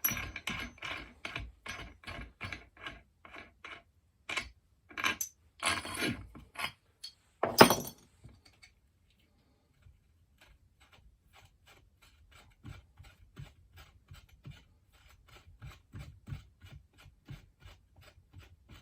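Metal clicks and clinks of chainsaw crankshaft and bearing parts being handled and fitted, about two to three a second. One louder knock comes just before 8 seconds in, then fainter, sparser ticking.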